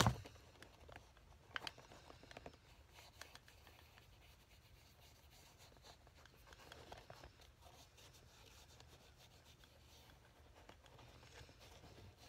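Faint rubbing of a dye applicator over shoe leather, with a few light clicks in the first couple of seconds.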